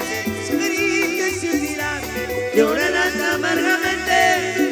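Live cumbia band playing: a bass line pulsing steadily under percussion, with a melodic lead line sliding up and down in pitch over it.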